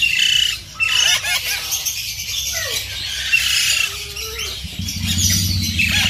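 Parrot chick squawking harshly, call after call, while its beak is held open for hand-feeding. A low steady hum comes in about three-quarters of the way through.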